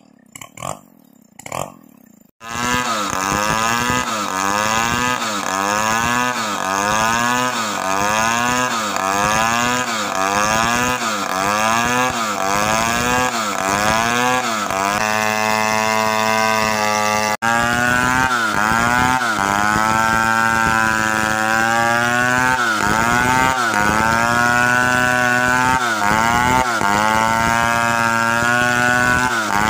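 Two-stroke chainsaw cutting through logs at full throttle, starting abruptly about two seconds in; its pitch dips and recovers about once a second as the chain bites into the wood. After a sudden break partway through, a saw ripping along a log swings in pitch more slowly and deeply.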